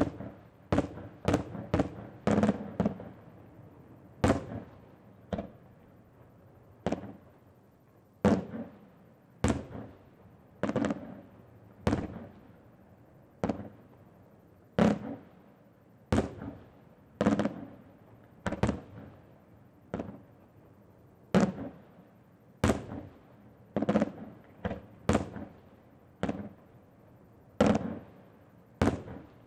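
Aerial firework shells bursting one after another, each a sharp bang followed by a rumbling echo. A quick cluster of bangs comes in the first few seconds, then roughly one every second or so.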